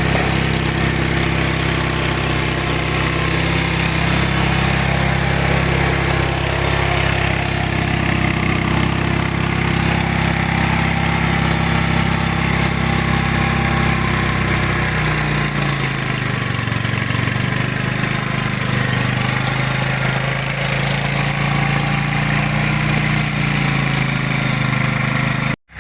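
Engine of an Iseki motoblock running steadily under load while its rotary tiller churns soil and mown grass. Its note shifts about halfway through, and the sound cuts off abruptly near the end.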